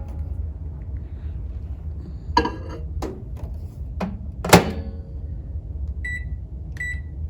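Microwave oven running with a steady low hum. A few sharp knocks and clunks come in the middle, the loudest about four and a half seconds in, then two short electronic beeps near the end.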